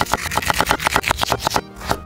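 Kitchen knife rapidly slicing green pepper on a wooden cutting board: a fast, even run of sharp taps of the blade on the wood, breaking off briefly near the end.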